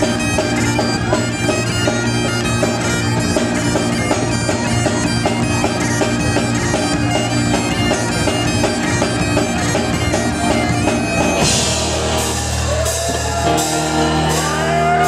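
Live Celtic rock band: bagpipes play a fast tune over their steady drones, backed by drums. About eleven seconds in, the drums switch to a cymbal-driven beat.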